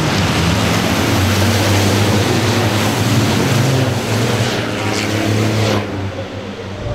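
A pack of race trucks' turbodiesel engines running hard at speed: a loud, dense roar over a deep engine drone, with one sweep falling in pitch near the middle and a brief dip about six seconds in.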